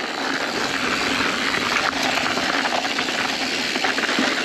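Mountain-bike tyres rolling and sliding over loose, dry dirt on a descent, a steady gritty noise with small knocks and rattles from the bike.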